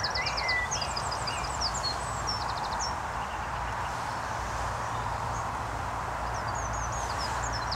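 A songbird singing in short phrases of quick chirps and rapid trills, for the first few seconds and again near the end, over a steady outdoor background hiss.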